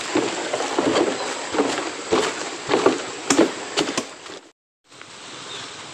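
Footsteps crossing a bridge, a dull thump about twice a second. About four and a half seconds in the sound drops out for a moment, and a steady hiss follows.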